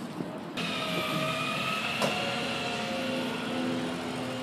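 A large truck's engine running steadily, with a high whine over it that drifts slightly lower; a single sharp click about two seconds in.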